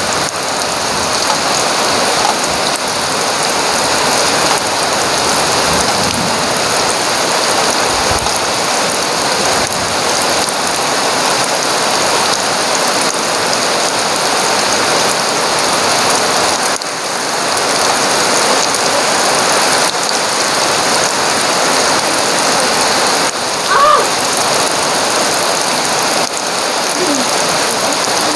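Heavy tropical rain pouring steadily, a dense even hiss with no let-up. About three-quarters of the way through, a short pitched call briefly rises above it.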